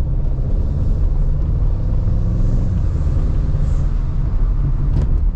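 Inside the cabin of an Audi S3 (8Y) driving slowly: a steady low rumble from the engine and road. The engine is running on freshly installed stiffer engine and transmission mounts, with its oil still cold.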